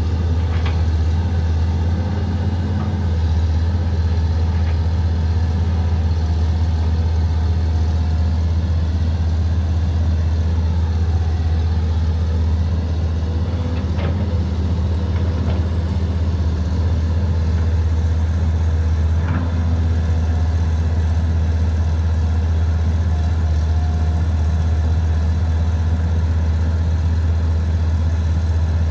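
Diesel engine of a CAT 320GC excavator running steadily with a low, even drone, with a few brief knocks scattered through.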